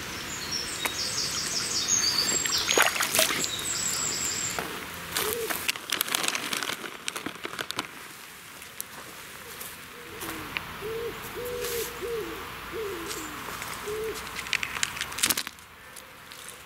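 A plastic bait bag of pellets crinkling and crackling as a hand works in it, in quick clicky bursts. A small bird sings high trills near the start, and a bird coos low a few times in the background.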